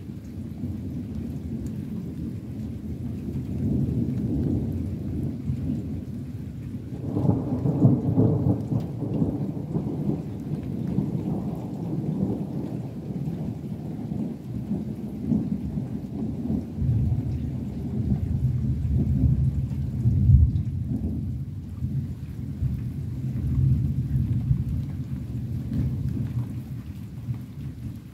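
Thunder rumbling in long continuous rolls, swelling about a quarter of the way in and cresting again about two-thirds through.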